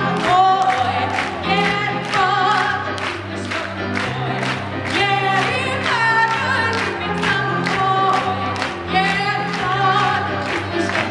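A woman singing a song in Russian into a handheld microphone, amplified over backing music with a steady beat.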